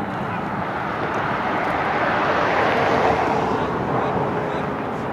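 A passing vehicle: a broad rushing engine noise that swells to a peak about midway and then fades.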